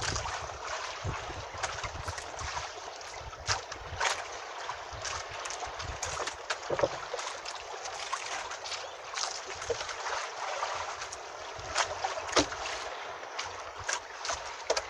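Water lapping and slapping against the hull of a small outrigger fishing boat, with a steady hiss and many irregular sharp clicks and knocks.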